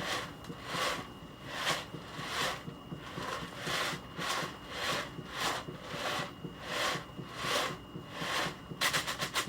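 Rhythmic rubbing or scraping strokes, about one every three-quarters of a second, ending with a quick run of clicks.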